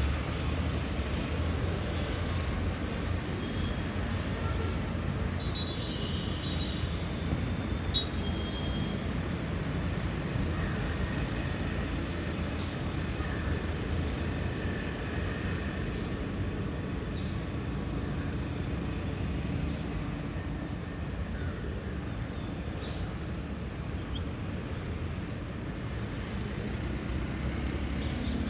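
Steady rumble of road traffic, with a few faint, short, high bird calls about six to eight seconds in.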